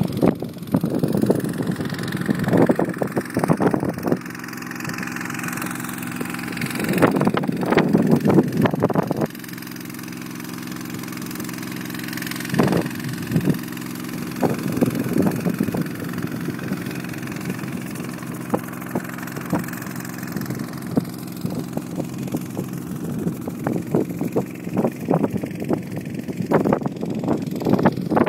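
Motocross bike engine running steady, with louder crackly stretches that come and go.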